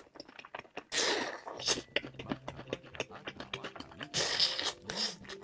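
Close-miked mukbang eating sounds: two longer noisy bursts of chewing, about a second in and again about four seconds in, with short wet mouth clicks between them.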